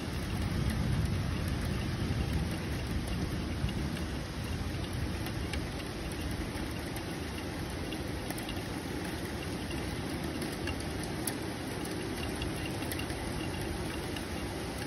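Steady rain in a thunderstorm, with a low rumble underneath and scattered drops ticking close by.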